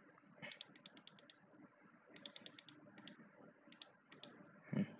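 Computer keyboard keys tapped in several quick bursts of clicks, from entering a margin value into a field. A short, louder, low thump sounds near the end.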